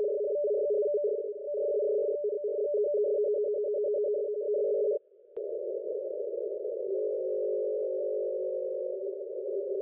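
Maritime Digital Selective Calling (DSC) data signal on 16804.5 kHz, heard through a shortwave receiver as a steady two-tone warble from the rapid switching between two close tones. It cuts out briefly about halfway and comes back hissier, with the tones fainter in the noise.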